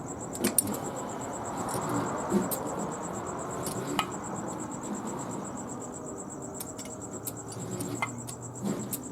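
Wrench working the jammed nuts on a seized, rusted exhaust manifold stud as it is slowly backed out, giving a few sharp metallic clicks. A steady high-pitched pulsing trill runs underneath.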